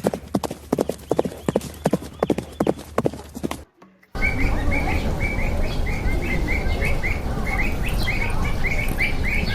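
A fast, irregular run of sharp knocks that stops abruptly. After a brief silence, a bird chirps again and again, about three short chirps a second, over steady background noise.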